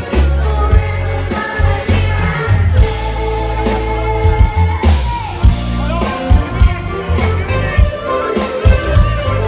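Live amplified pop band: lead and backing singers over bass guitar, drums and keyboards, with a heavy bass and a regular drum beat.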